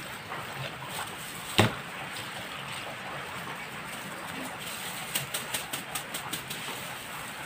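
Metal spoon stirring a creamy salad in a stainless-steel bowl, with one sharp clink of spoon against the bowl about a second and a half in, then a quick run of about eight light clicks near the end.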